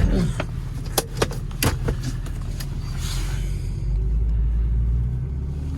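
Car engine running at low speed, with several sharp clicks and knocks in the first two seconds. The low engine rumble grows louder about four seconds in, then eases off.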